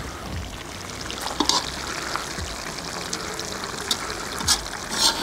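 Duck and vegetables stewing in an aluminium kazan, sizzling and bubbling with a fine, steady crackle. Near the end a metal slotted spoon scrapes and stirs through the food.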